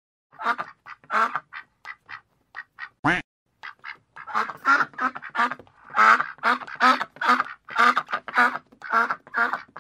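Duck quacking: a series of short quacks, sparse at first and then coming quickly one after another from about four seconds in, with one louder quack about three seconds in.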